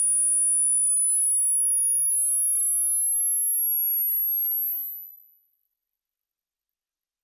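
Hearing-test tone: a single pure electronic sine tone, very high-pitched, gliding slowly and steadily upward in pitch at a constant level.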